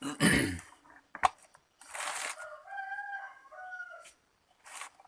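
A rooster crowing once in the background, one wavering call lasting about a second and a half. Before it come a loud scrape, a sharp click and another scrape as plastic printer parts are handled and put back together.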